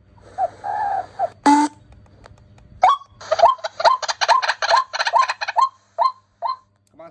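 Recorded bird calls played through a ZY-E388 electronic bird-trapping speaker, very loud. A few softer notes come first, then a quick series of short calls with a rising hook, about three a second.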